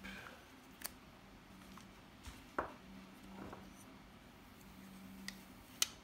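Protective plastic film being peeled by hand off a crystal touchpad cover: a few small, sharp clicks and faint crackles, the sharpest near the end.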